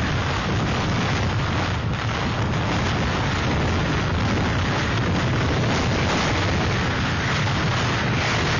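Hurricane-force wind blowing without letup: a steady dense rushing noise with a heavy low rumble where the wind buffets the microphone.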